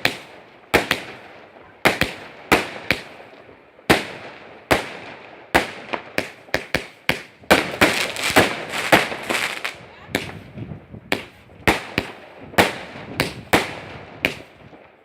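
Fireworks display: a rapid, irregular series of aerial shell bursts, sharp bangs each trailing off in a crackle and echo, thickest a little past the middle.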